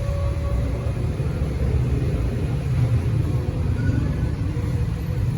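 Low, steady rumble of road traffic, with vehicle engines running.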